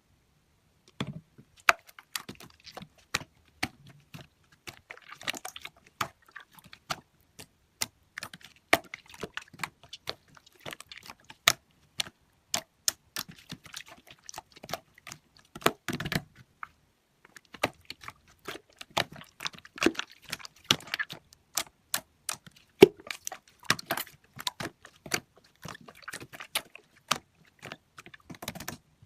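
Irregular keystroke clicks, like typing on a computer keyboard, several a second with short pauses, and a few duller thumps.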